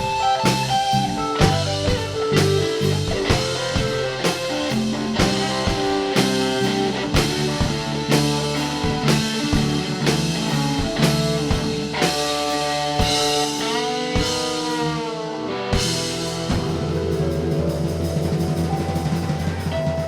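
Live rock band playing an instrumental passage: electric guitar notes, some of them bent, over drums and bass, with a cymbal crash about three quarters of the way through.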